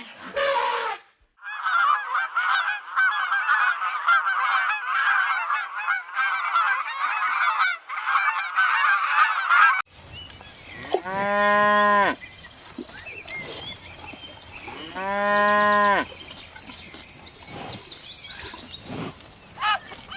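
A large flock of waterfowl calling and honking all at once in a dense, continuous chatter. After a cut about halfway through, cattle low twice, each a long, even moo about a second long, some four seconds apart.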